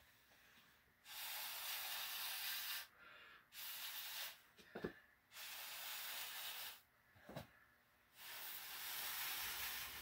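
Breath blown hard through a turkey baster onto wet acrylic paint, hissing in four long puffs of one to two seconds each, with short pauses between them.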